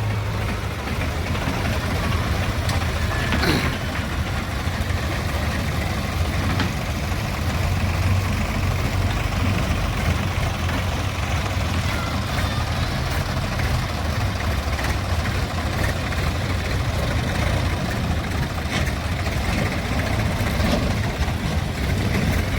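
Heavy diesel engine running steadily, with a constant low drone.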